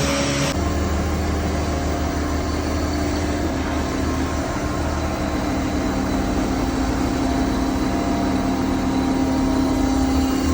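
Large sawmill machinery running steadily, with a constant engine-like drone and hum. The sound shifts abruptly about half a second in, then holds steady.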